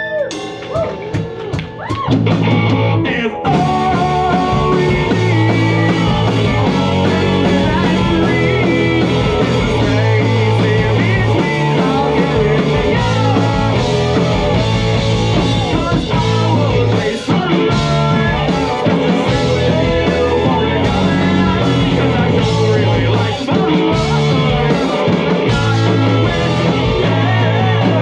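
Live rock band with a horn section playing: drums, electric guitar, keyboards, trombone and trumpet. The first few seconds are sparser with separate hits, then the full band comes in at a steady, loud level.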